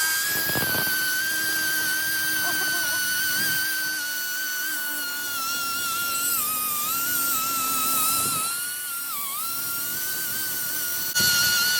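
Power tool spinning a metal wire wheel, scouring rust off the old fuel pump and its plate: a steady high whine that sags in pitch as the wheel is pressed into the work, a little after halfway and again about three-quarters through.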